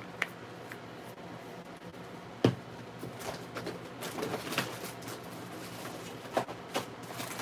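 Small plastic sprinkle containers being handled and sorted: a sharp knock about two and a half seconds in, then scattered clicks and rattles, over a steady low hum.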